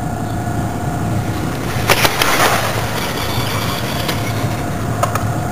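An electric radio-controlled car passes close by at full speed on a speed-clocking run, a loud rushing sound about two seconds in that fades within about a second.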